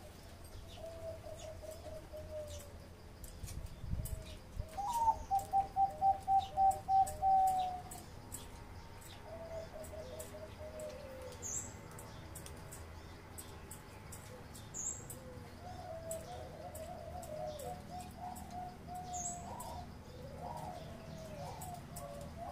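Caged zebra dove singing its staccato cooing song: several phrases of quick, evenly spaced coo notes, the loudest a run of about ten notes about five seconds in.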